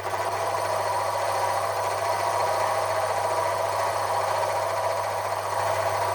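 Metal lathe running with a boring bar cutting inside a hole to enlarge it: a steady motor hum under a louder, rough cutting noise.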